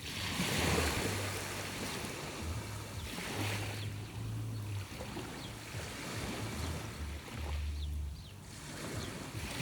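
Sea waves washing onto the shore, the surf swelling and falling back every few seconds, with wind buffeting the microphone.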